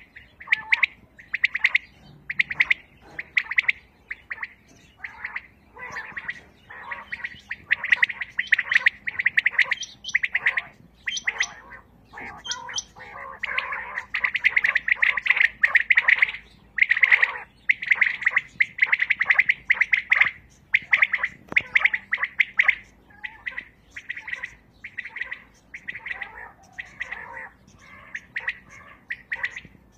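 A group of caged quails calling over and over, short chirping calls overlapping one another, busiest and loudest in the middle of the stretch.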